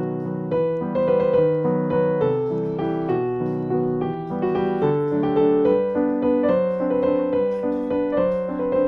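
Background piano music: a gentle tune of held piano notes changing about every half second.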